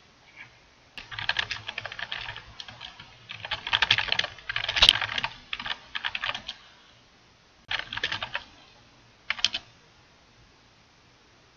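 Typing on a computer keyboard: quick runs of key clicks for about five seconds, with one sharper keystroke partway through, then two short bursts of typing before it stops.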